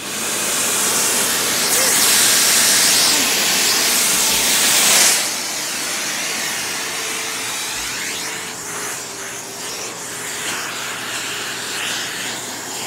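Vacuum cleaner starting up suddenly and running with a loud rushing hiss as its nozzle is drawn through a husky's thick coat; the hiss eases and dulls a little about five seconds in.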